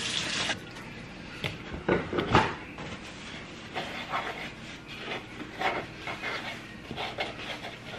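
Wooden spoon stirring dry cookie mix and softened butter in a plastic mixing bowl: irregular scraping and knocking against the bowl, with a couple of louder knocks about two seconds in.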